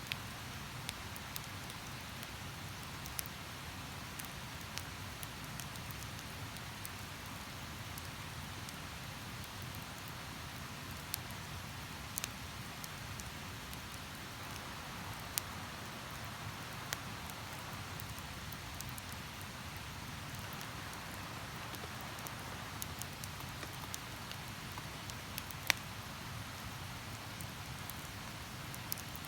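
Wood campfire crackling, with scattered sharp pops and one louder snap near the end, over the steady rush of a river.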